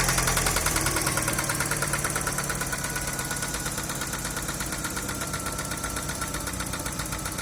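Daewoo Nexia's four-cylinder petrol engine settling back down toward idle after a rev, getting steadily quieter. A regular knock runs through it: the engine knock the owner is showing.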